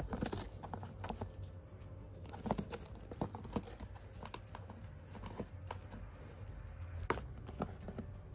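Irregular light taps, clicks and scratches of cats' paws and claws on a cardboard box as they move about in and on it.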